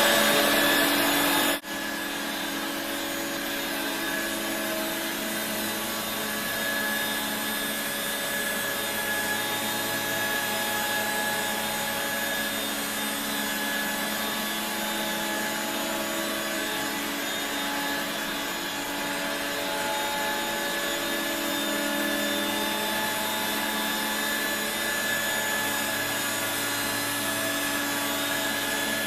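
A 1985 Regina Electrikbroom PowerTeam stick vacuum running, a steady motor whine and hum. About a second and a half in there is a click and the sound drops sharply in loudness, then it runs on evenly.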